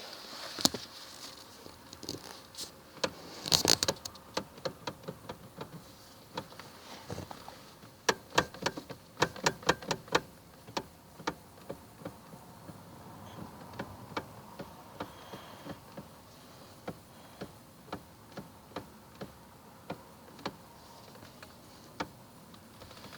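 Knocking from a Toyota Camry's steering: sharp, irregular knocks, with a quick run of them about eight to ten seconds in and spaced single knocks after that. The knock is the steering fault the owner is trying to track down.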